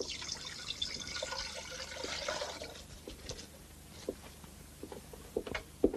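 Milk poured from a glass bottle into a pan for about three seconds, followed by a few light clinks and knocks of kitchenware.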